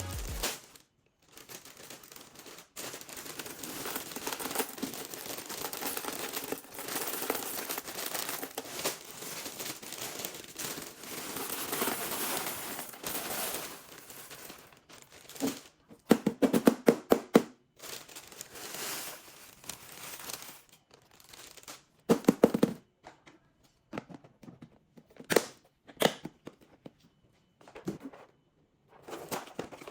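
Plastic packaging crinkling and tearing as it is handled, with several short bursts of rattling clatter in the second half.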